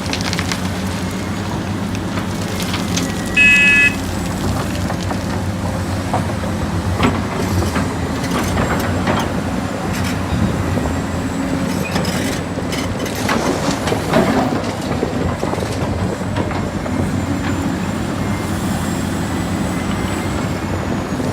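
Steady truck engine sound running throughout, with a short horn beep about three and a half seconds in and occasional knocks.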